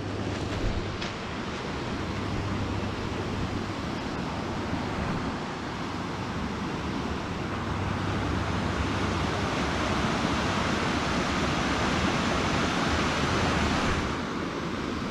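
Steady rushing of river water pouring over a rocky cascade and small waterfall into a pool. It gets a little quieter near the end.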